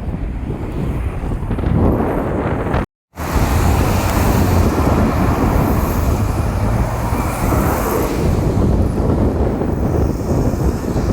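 Strong wind buffeting the microphone with a loud, low rumbling noise, cut off for a split second about three seconds in before it resumes.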